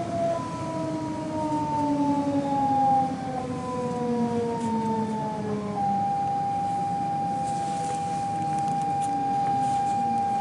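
Electric S-train's traction motors whining as it brakes into a station: several tones fall steadily in pitch, then about six seconds in they switch to one steady held tone, over a low running rumble.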